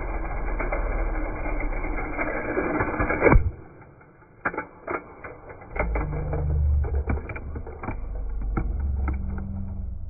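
Close rubbing and scraping ending in a sharp knock about three and a half seconds in. Then scattered light clicks and a low rumble as a small plastic toy car rolls over a tiled floor.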